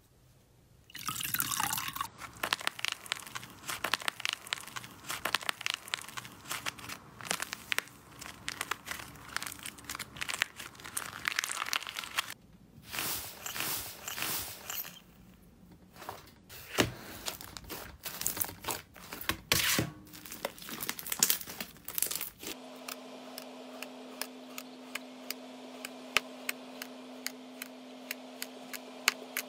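Slime being squeezed, poked and pressed by hand, giving dense wet crackling and clicking. It comes in several short stretches, and near the end the clicking comes faster over a steady low hum.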